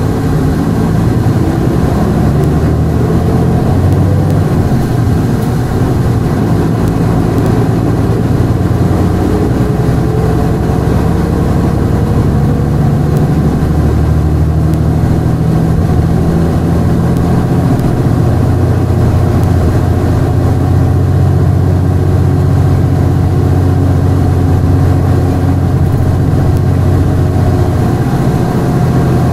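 Hankyu Bus no. 383, a non-step city bus, heard from inside while running: its diesel engine drones continuously, the pitch gliding upward in places as it accelerates, then settles into a steady low hum in the latter part.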